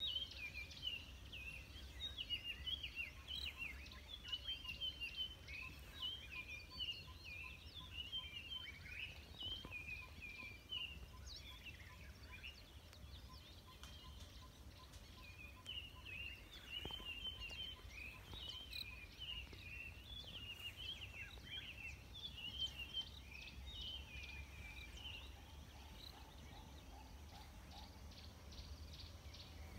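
A group of animals giving rapid, overlapping high chattering calls in two long bouts, the first lasting about twelve seconds and the second starting about fifteen seconds in, over a steady low rumble.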